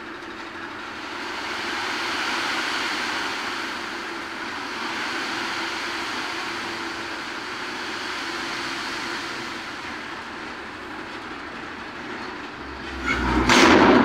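Tipper trailer's body being raised on its hydraulic ram while its load of sand pours out the back, a steady rushing hiss over a running engine's hum. About 13 seconds in, a sudden loud rumbling surge, the loudest part.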